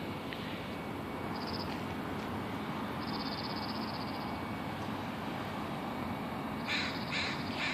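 A crow cawing: three harsh caws about half a second apart near the end, over a steady background hiss. A brief high, fast trill sounds a couple of times earlier.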